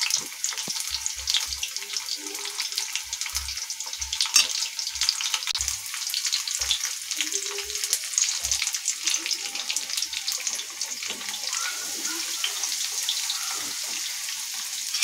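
Breadcrumb-coated taro (arbi) cutlets deep-frying in hot oil on a low flame: a steady sizzle thick with fine crackles. A few soft low thuds come and go underneath.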